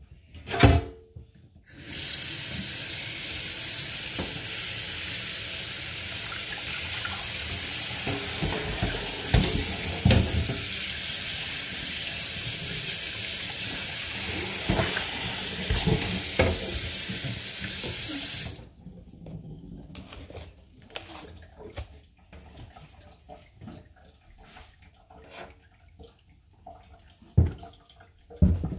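Kitchen tap running into a stainless steel sink and a frying pan for about sixteen seconds, with a few knocks of the pan against the sink. The water then shuts off, leaving quieter clattering and handling, with a couple of sharper knocks near the end.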